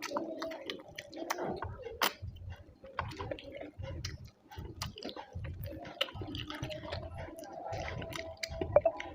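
Close-miked wet chewing and lip-smacking of someone eating rice with curry, in a steady chewing rhythm with many small mouth clicks.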